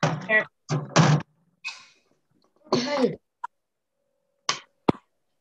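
A person's voice in several short bursts, then a single sharp click near the end.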